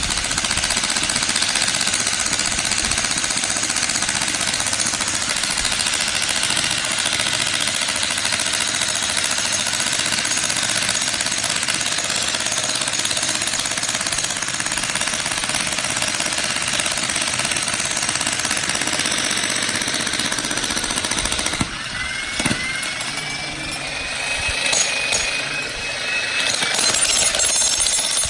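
Jackhammer hammering continuously in a rapid steady stream, breaking up ground to clear the land. It stops about 22 seconds in, when a thin rising whistle-like tone is heard, and starts hammering again near the end.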